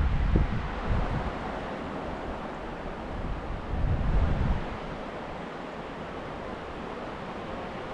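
Steady rush of river water, with wind buffeting the microphone in low gusts at the start and again about four seconds in.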